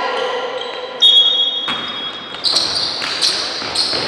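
Basketball being dribbled on a hardwood gym floor, a bounce about every half second in the second half, echoing in a large hall. About a second in, a loud, high piercing tone lasts under a second.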